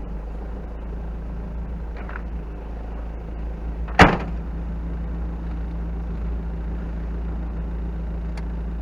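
Engine of an engine-swapped 1986 Toyota off-roader running steadily at low crawling speed, with one sharp clunk about four seconds in.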